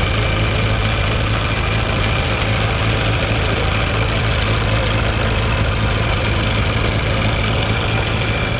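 Engine of a Singer Monarch (OTA Monarch) garden tractor idling steadily, heard close up, with a faint steady high whine over the low running note.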